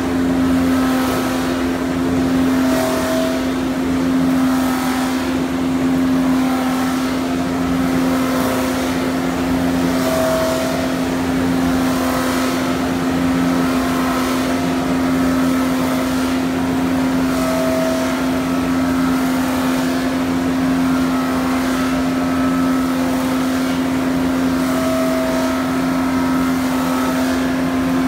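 Mattison rotary knife lathe cutting a square treated-pine verandah post: a loud, steady machine hum with one strong held tone, and a hiss from the knives on the wood that pulses about once a second.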